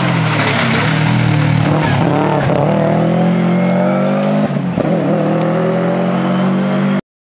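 Subaru Impreza rally car's flat-four engine running hard as the car comes through a bend and drives away, the engine note dipping and climbing again twice, about two and a half and four and a half seconds in. The sound cuts off suddenly near the end.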